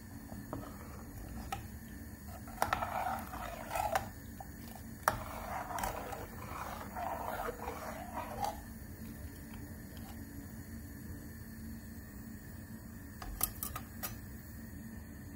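A ladle stirring and scraping round a metal pot of lentil curry on the boil, with sharp clinks against the pot. The clinks come through the first half and again as a quick few near the end.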